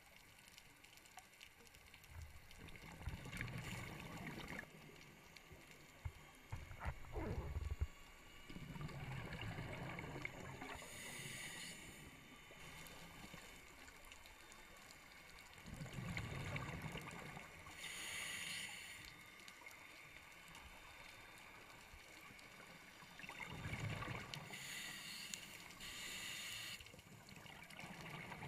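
Scuba diver breathing through a regulator underwater: each exhalation is a low stream of bubbles lasting two to three seconds, followed by a short high hiss of inhalation, repeating about every seven seconds. A few sharp clicks come around seven seconds in.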